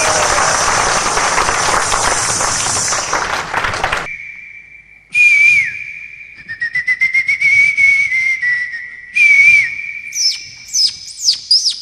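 Mouth-made sound effects: a loud hiss for about four seconds. Then a long, steady, high whistle broken by warbles and a run of rising chirps, ending in quick, falling, bird-like chirps.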